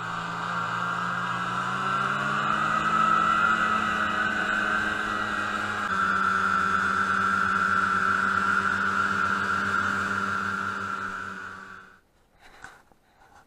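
Snowmobile engine running under way, its pitch rising over the first few seconds as the sled picks up speed, then holding a steady note; it stops suddenly about twelve seconds in.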